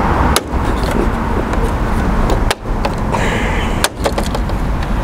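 Sharp clicks of the plastic retaining clips on a Ford Fiesta's front grille as they are pried and popped loose by hand, three times, over a steady low outdoor rumble.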